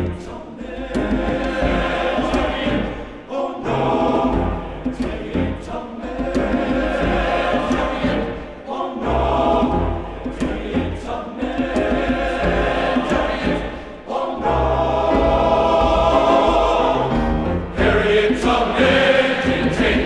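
Gospel-style choir singing over a backing track with a steady bass, in phrases of a few seconds.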